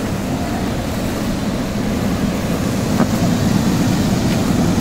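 Steady rushing noise of the air blower driving the ball-pit table's air jets, which keep plastic balls bouncing in the air, with a faint click about three seconds in.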